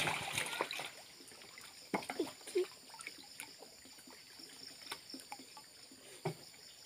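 Shallow muddy water trickling, with a splash right at the start as a fish drops into a water-filled plastic drum. A few faint splashes and knocks follow later on.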